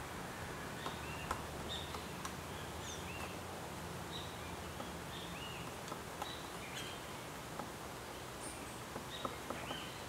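Lineated woodpecker pecking at dead wood: a few sharp, irregular taps over a steady hiss of forest ambience, with short high bird chirps scattered throughout.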